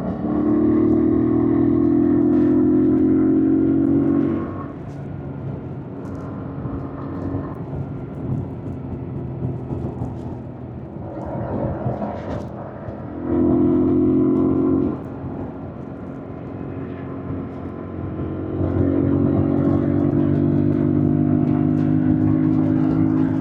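2025 Yamaha MT-07's parallel-twin engine riding on: held under throttle for about four seconds at the start, briefly again a little past halfway, and steadily from about three-quarters in, with quieter off-throttle running between.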